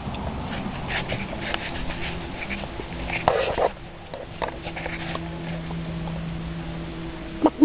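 Backyard chickens clucking and moving about over a steady low hum, with a louder call about three seconds in; a rooster starts to crow right at the end.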